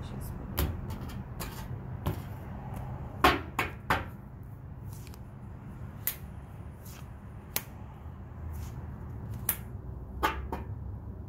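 Tarot cards being shuffled and handled: about a dozen irregular sharp card slaps and taps, several coming close together around three to four seconds in, over a low steady hum.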